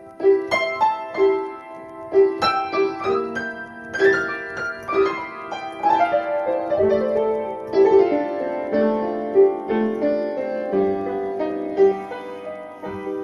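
Solo piano playing an instrumental passage: a steady stream of struck notes and chords, with no voice.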